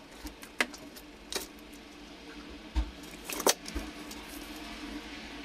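Small metal parts and hand tools clinking and tapping on a workbench as they are handled: a handful of short, sharp clicks spread over a few seconds, with a faint steady hum underneath.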